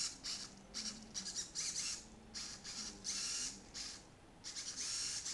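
Two robot arm servos driven by a PS2 controller in analog mode, whirring in a rapid series of short, high-pitched bursts as the arm jerks back and forth, with a longer burst near the end.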